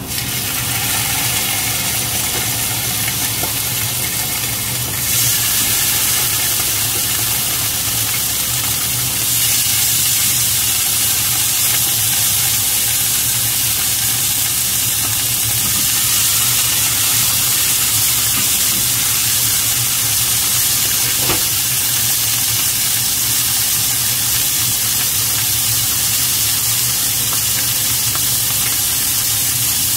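Raw pork belly slices sizzling in a hot nonstick frying pan. The sizzle is steady and gets louder about five seconds in and again near ten seconds, as more slices go into the pan.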